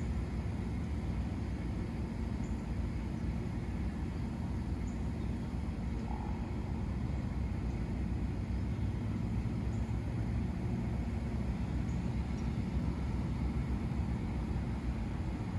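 Steady low rumble of a running vehicle engine, unchanging in level.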